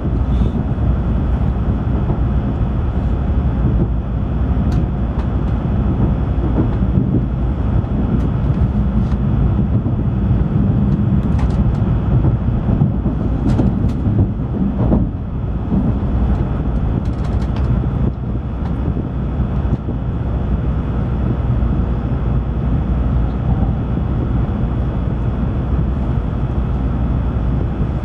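Steady low rumble of an N700-7000-series Shinkansen train running, heard inside the passenger cabin, with a few faint clicks about halfway through.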